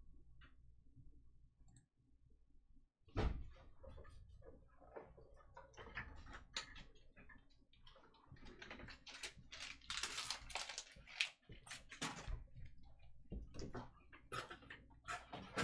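A box and packs of Bowman Draft baseball cards being handled and opened: a knock about three seconds in, then a run of short rustles and clicks, busiest near the middle.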